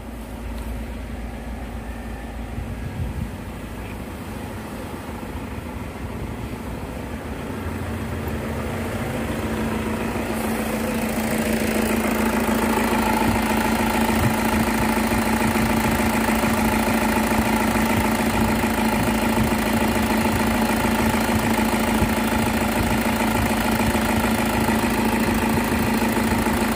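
Toyota Fortuner engine running at idle, with a steady hum. About ten seconds in it grows louder and settles into a fuller, even drone.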